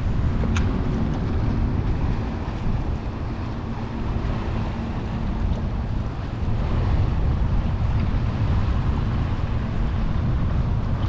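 Steady wind noise on the microphone over choppy water lapping at a boat's hull.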